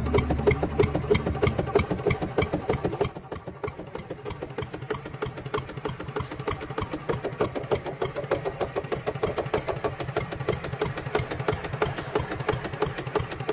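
Small electric drive motor and gears of an RC toy tractor running under load, a fast, even rattle of clicks like a tiny engine, as it drags a disc plow through hard soil.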